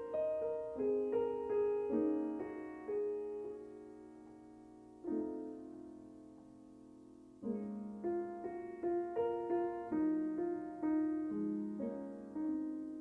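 Solo piano music: a slow melody of struck notes and chords, with two long held chords about halfway through.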